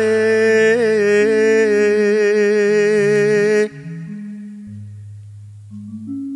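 A solo voice sings one long held note with a wavering vibrato, in a slow Javanese song, over sustained low accompaniment notes that change pitch every second or so. The voice stops a little past halfway, leaving the quieter accompaniment on its own.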